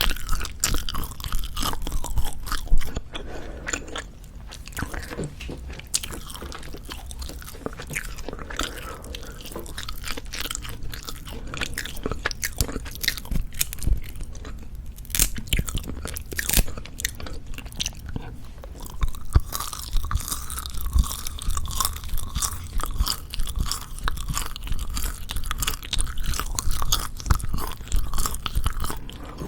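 Close-miked chewing and biting of Jeju black pork jerky: irregular wet clicks and crackles of the dried meat being bitten and worked between the teeth.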